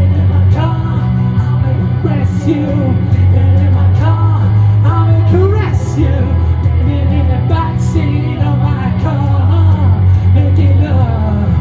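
Rock music: a man singing over electric guitar with a steady, heavy bass line.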